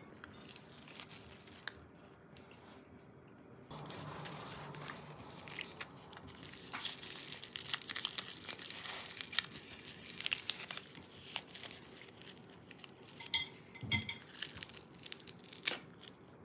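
A dry sheet of nori seaweed crinkling and crackling as it is handled and folded into a hand roll, the crackles thickest in the middle.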